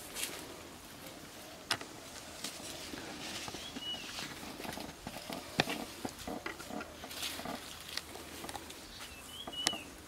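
Footsteps and the rustling of leafy branches as people push through dense brush, with a few sharp snaps of twigs. A short high chirp comes twice, once near the middle and once near the end.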